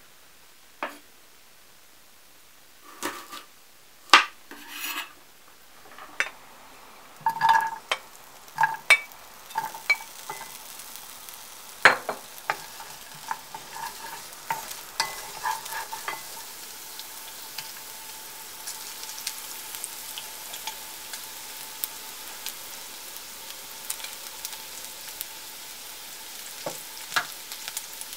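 Diced carrot and ham frying in a nonstick pan, with a wooden spatula stirring, scraping and tapping against the pan. A few louder knocks and clatters come in the first several seconds, and the sizzle builds from about ten seconds in and holds.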